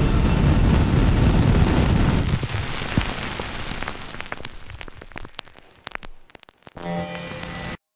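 Dense rushing noise, heaviest in the lows, that thins after about two seconds into scattered crackles and clicks and fades almost away. A short low hum follows near the end, and then the sound cuts off abruptly.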